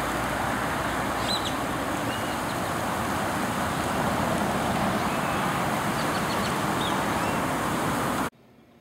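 Steady rushing splash of a pond fountain's spray jet falling back onto the water, with a few faint bird chirps over it; it cuts off abruptly near the end.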